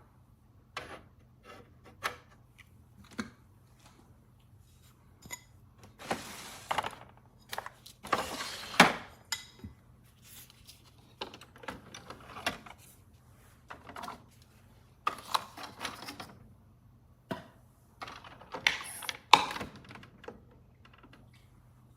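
Irregular clicks and knocks with a few short scraping or rustling passages, as of hard objects being handled and set down.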